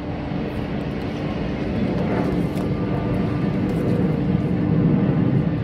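A steady low engine rumble with a constant hum, growing louder about two seconds in.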